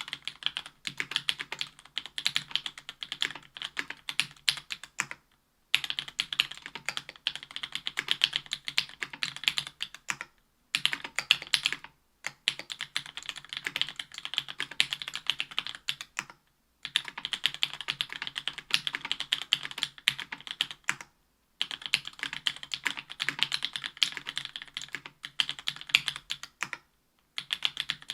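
Typing on a Special Whale mechanical keyboard with stock JWK Black 62g linear switches, an aluminium plate, foam dampening and GMK keycaps. Rapid keystrokes come in runs of several seconds, broken by brief pauses.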